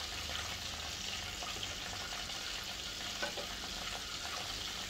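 Steady cooking hiss of pots on a gas stove, a pot of fish and pechay broth simmering, with a few faint clinks as a ladle stirs it about three seconds in.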